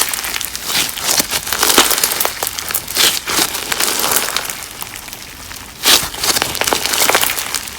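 Crunch slime full of crunchy add-ins being squeezed and kneaded by hand, giving a dense run of crackling and popping with a louder burst of pops about six seconds in.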